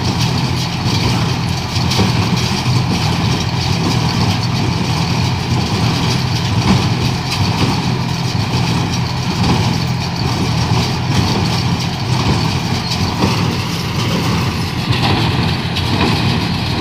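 A vehicle engine running steadily at an even speed, with no change in pitch.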